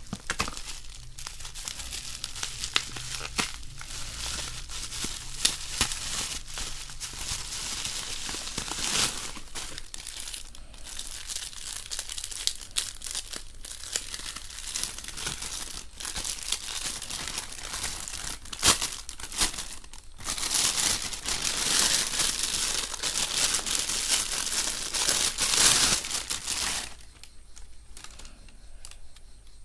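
Packaging being handled during an unboxing: continuous crinkling and rustling with sharp crackles. It grows louder for several seconds past the middle, then dies down near the end.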